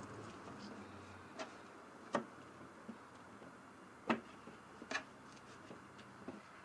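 Scattered light knocks and clicks as a flood sack is handled and pushed down behind a door floodboard, about four louder ones at irregular intervals over a faint hiss.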